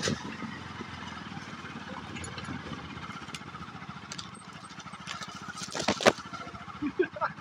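Motorcycle engine running at a steady low speed, a fast even pulse under the ride. About six seconds in, tall grass brushes loudly across the bike and camera.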